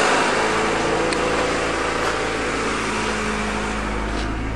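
1992 Honda Accord's four-cylinder engine running steadily, with a smooth hum under a steady hiss. It is running again now that the distributor's ignition module has been reseated on fresh heat sink compound. Two faint clicks are heard, about a second in and near the end.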